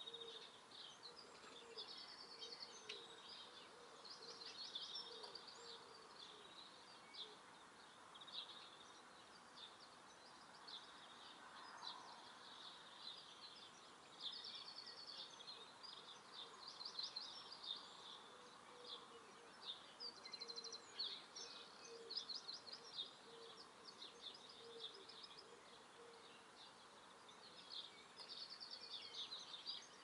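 Faint chirping and singing of several small garden songbirds: high, quick chirps and trills, with a rapid trilled phrase that recurs every few seconds.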